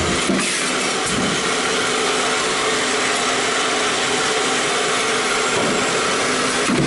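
Sheet-metal stamping press with a progressive die running: a steady machine hum over a loud hiss, with a few short knocks in the first second and another near the end.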